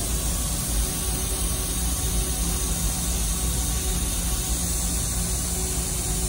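Steady hiss with a low rumble and a faint hum from running shop machinery. The sound stays level with no distinct events.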